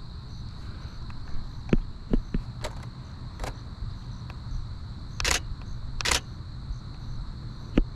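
Canon Rebel T7i DSLR shutter firing at crows: a series of sharp clicks, the two loudest short bursts about a second apart just past the middle.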